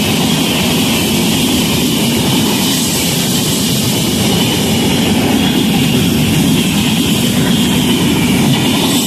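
Indian Railways express passenger coaches (LHB type) running past at high speed: a loud, steady rumble and clatter of wheels on rail with rushing air.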